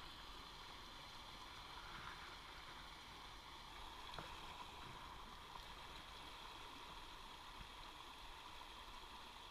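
Small river flowing over a shallow riffle: a faint, steady rush of running water.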